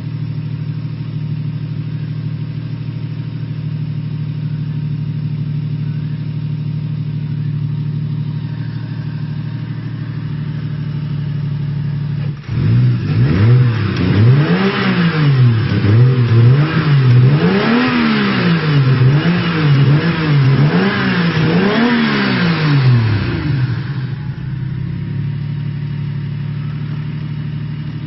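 Toyota 1JZ-GTE inline-six engine with a single TD08 turbo, idling steadily. About halfway through it is blipped through a run of about eight quick free revs, each one rising and falling, then it drops back to a steady idle.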